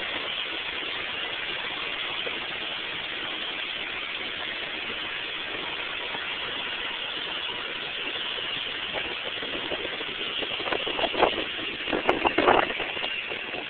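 Vehicle engine running while driving, picked up by a poor cellphone microphone as a steady, distorted hiss; a few louder knocks and clatters come near the end.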